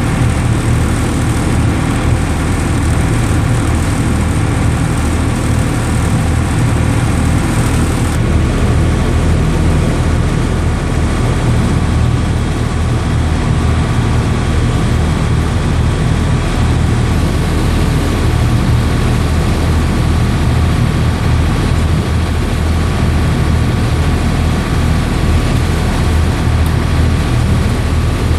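A boat's engine running steadily under way, with a deep, even drone.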